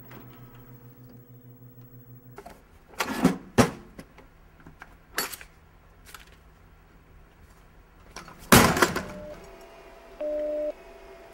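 A low hum, then a few sharp knocks and clunks, the loudest about eight and a half seconds in. Near the end a steady telephone line tone comes on from an off-hook handset, and a louder two-note beep sounds once, the start of a busy signal.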